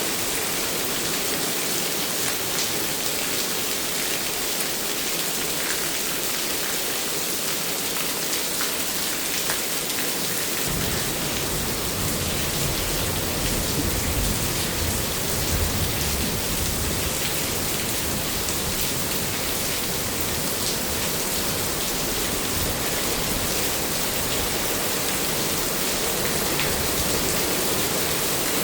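Steady rain falling, an even hiss of drops. A low rumble joins about ten seconds in and carries on beneath it.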